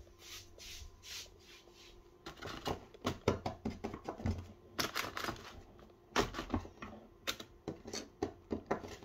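Fingers typing: soft taps at first, then a quick, irregular run of clicks and taps from about two seconds in.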